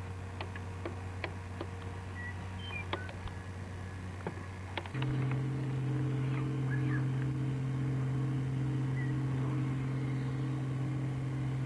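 Engine running steadily with a low hum that steps up to a higher pitch and gets louder about five seconds in. A few short bird chirps and light clicks sound over it.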